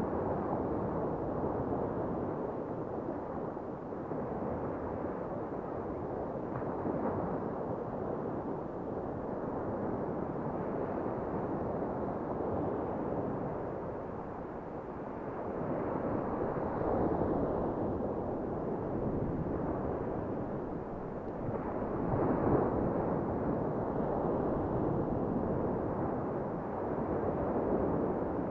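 Sea surf washing in at the shore: a steady rush of water that swells louder every several seconds as waves break.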